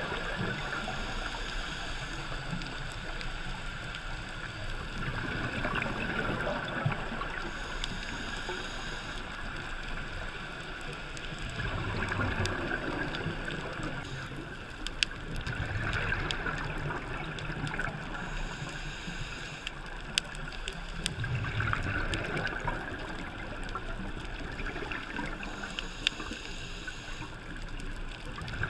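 Underwater sound heard through a GoPro's dive housing: a scuba diver breathing on a regulator, a swell of exhaled bubbles about every five seconds over a steady muffled rush, with scattered sharp clicks.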